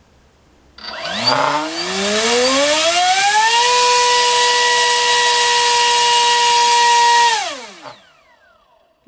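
Turnigy 2836 3200 kV brushless motor spinning an APC 4.75x4.75 E propeller on a 3-cell battery in a thrust test: a loud whine with a rushing hiss rises in pitch over about three seconds as the throttle opens, holds steady at full throttle, then falls away and stops near the end. This prop overloads the motor, with ridiculously high current draw for less thrust.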